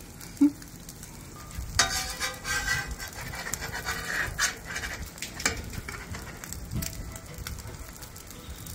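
Omelet frying quietly on a flat-top steel griddle, with a metal spatula scraping and clacking on the griddle surface a few times as it slides under the egg to fold it.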